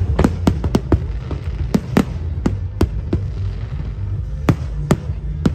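Aerial fireworks bursting in quick, irregular succession: about a dozen sharp bangs and pops, over a steady low rumble.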